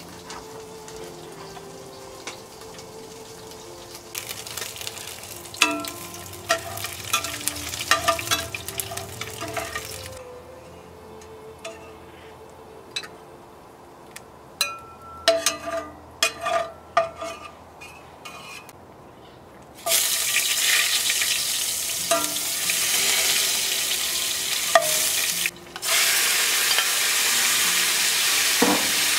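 Knocks and clatter of kitchen work, then about two-thirds of the way through a sudden loud, steady sizzle as raw chicken pieces go into hot oil in a stainless steel sauté pan and are stirred with a spatula.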